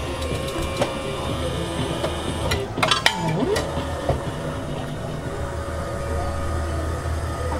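Lollipop scoop vending machine running, its motor whirring steadily, with a brief clatter of lollipops and a short gliding whine about three seconds in.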